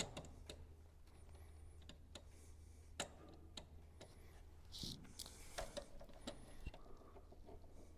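Faint, scattered small clicks and taps from hands working at an electrical panel's wire lugs, over a low steady hum.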